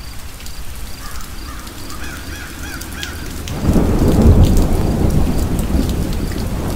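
Rain falling with a crow cawing several times, then a deep rumble of thunder rolls in about three and a half seconds in and carries on loudly.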